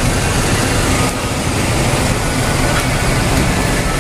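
Diesel engine of a double-decker coach running steadily as the bus pulls away slowly at low speed.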